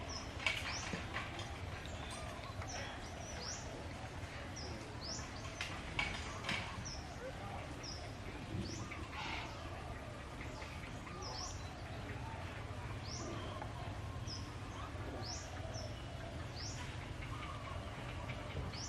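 Small bird chirping: short, high, rising chirps repeated about once a second, over a steady low hum, with a few soft knocks.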